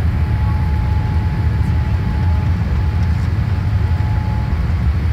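Cabin noise of a Boeing 787-8 rolling on the ground before takeoff: a loud, steady low rumble from the engines and wheels, with a faint steady whine above it.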